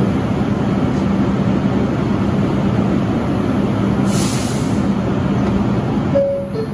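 Bombardier R142 subway car standing in a station with its doors open: a steady hum and rumble from the idling car, with a short hiss of air about four seconds in. Near the end the descending two-tone door chime sounds as the doors begin to close.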